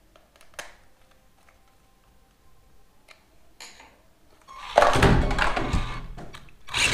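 A few light clicks of small parts, then a loud burst of about two seconds as the S911 Foxx RC monster truck's electric motor spins up and its wheels whir, mixed with clattering as the truck lurches and is grabbed off the desk.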